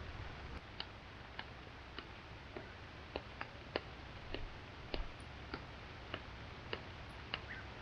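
Drops falling onto an umbrella: irregular sharp ticks, about one to two a second, over a faint steady hiss.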